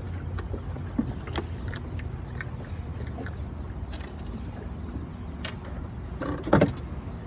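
Steady low rumble of wind and water around a small fishing boat, with scattered light clicks and a short cluster of louder knocks near the end.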